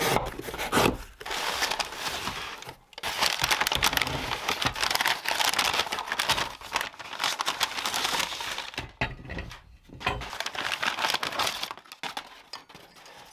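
A cardboard box's tape slit with a knife and its flaps pulled open, then brown kraft packing paper crinkling and crumpling for several seconds as a metal soil blocker is unwrapped. The rustling dies down about two seconds before the end, leaving light handling clicks.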